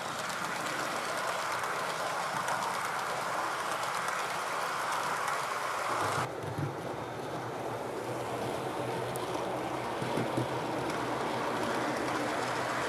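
Model railway train running along the layout track: a steady whirr of wheels on the rails and the motor. About six seconds in the sound shifts to a lower rumble as the train passes closer.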